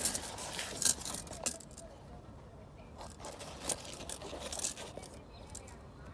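Close handling noise: rustling and scraping of a tape measure against large squash leaves and the fruit, with a few sharp clicks, in two bouts with a short lull between.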